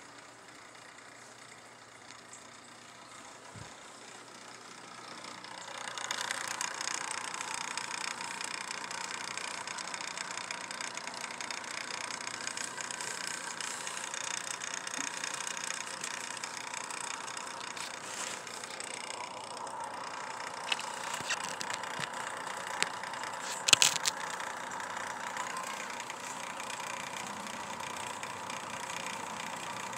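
A steady motor or engine running, coming in about five seconds in and holding to the end, with a few sharp clicks near the end.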